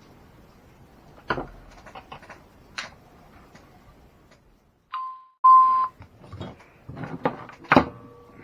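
Small hard parts clicking and knocking as they are handled during disassembly, with two short, steady, same-pitched electronic beeps about five seconds in, the second one longer and louder.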